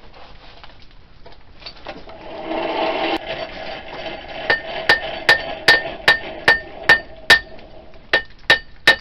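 Hand hammer striking a red-hot steel knife blade on an anvil, forging in the bevel: about a dozen ringing blows at a steady two to three a second, starting about halfway through, with a short pause near the end. A brief rushing noise comes a few seconds before the blows begin.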